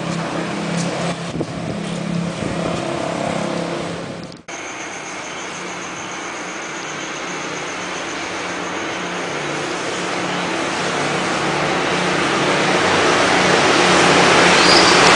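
Motor vehicle engine running with a steady low hum, then after a brief break about four and a half seconds in, a rushing noise that grows steadily louder, like a vehicle drawing near.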